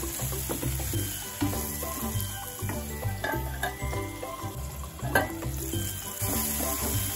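Wooden spatula stirring and scraping chopped spring onion and tomato sizzling in oil in a frying pan, with a sharp knock about five seconds in.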